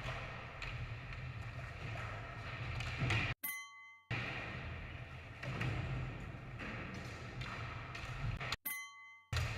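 Skateboard session sound: wheels rolling on ramps with scattered knocks of boards landing. Twice the sound drops out briefly and a short bell-like ding rings in the gap.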